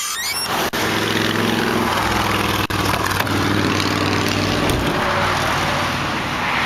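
Steady road-traffic noise: a hiss of passing tyres with the low hum of a vehicle engine, which eases off after about five seconds.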